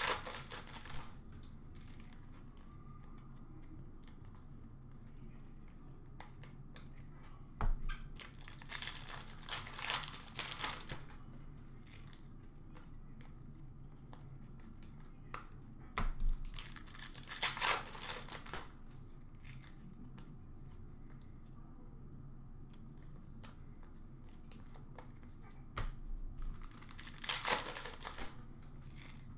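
Foil hockey card packs being torn open and crinkled by hand, in three bouts about eight seconds apart, with a few light clicks from cards being handled in between.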